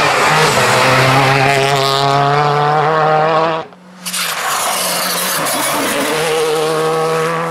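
Rally car engines running at high, nearly steady revs. A Renault Clio rally car is heard first; it breaks off abruptly a little past halfway, and a Skoda Fabia R5's four-cylinder turbo engine takes over at a similar steady pitch.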